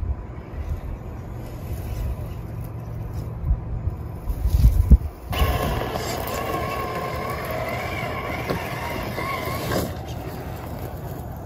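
Traxxas TRX-4 RC crawler's electric motor and gearbox whining steadily as the truck crawls, starting about five seconds in and stopping shortly before the end. Before that, a low rumble with a few thumps.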